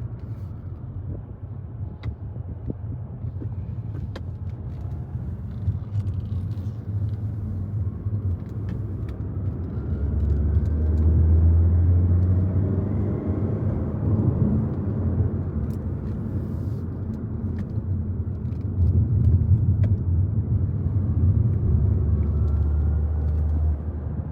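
A car driving along, a steady low road and engine rumble that swells about ten seconds in and again near the end.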